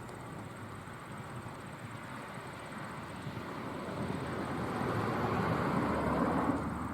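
A vehicle passing by: a rushing noise that swells over several seconds and falls away near the end.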